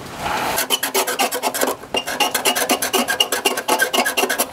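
A 1940s Chevrolet truck's gas straight-six being spun over during a check for ignition spark: a fast, even series of raspy metallic clicks, about seven a second, with a brief break a little under two seconds in.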